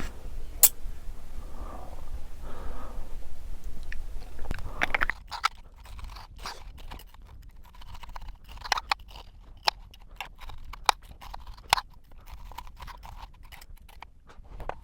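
A person chewing food close to the microphone: soft chewing at first, then from about five seconds in a quick run of sharp crunches and wet mouth clicks.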